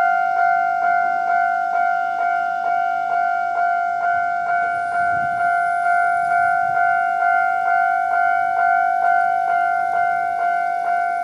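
Japanese railway level-crossing warning alarm ringing its standard 'kan-kan' tone: evenly repeated two-tone dings, about two a second, each fading before the next. A faint low rumble comes in briefly about five seconds in.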